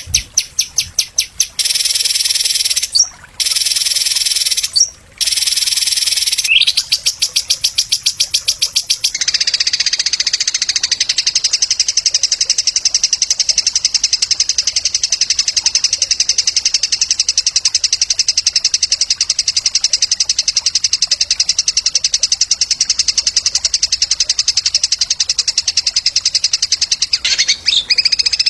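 Recorded songbird song, played as masteran for training competition birds: rapid, evenly repeated high chirps with two short breaks. About nine seconds in, these give way to a long, unbroken, fast buzzy trill.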